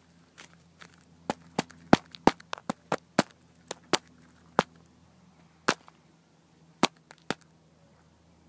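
A hen pecking at an iPhone, its beak striking the phone in sharp, irregular taps. The taps come thick and fast for a few seconds, then a few more are spaced out near the end.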